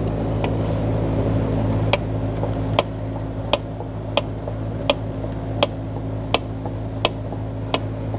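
Ratchet with a 7 mm socket loosening a worm-gear hose clamp: single sharp clicks at an even pace, about one every 0.7 s, starting a couple of seconds in, over a steady low hum.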